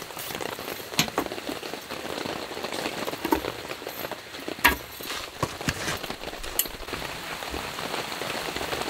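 Steady rain falling on a camping tarp, with a few sharp knocks and taps scattered through it.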